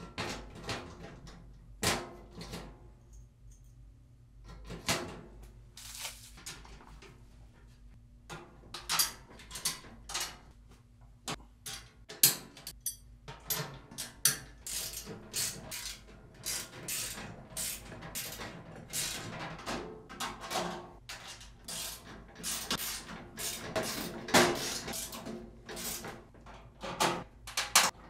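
Irregular knocks, clicks and scraping of steel parts being handled and fitted together by hand on a sheet-metal welding cart, with the cabinet door being worked at the start. The knocks come sparsely at first and grow busier about a third of the way through.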